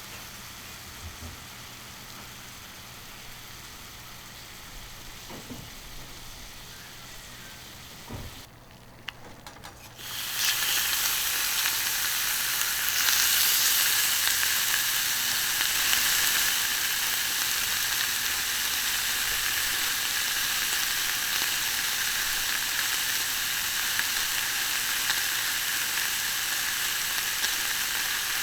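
Beef loin steak sizzling on a hot iron griddle. The sizzle is quiet with a few clicks at first. It turns loud and steady suddenly about ten seconds in, and grows a little louder again a few seconds later as the heat is turned up to full.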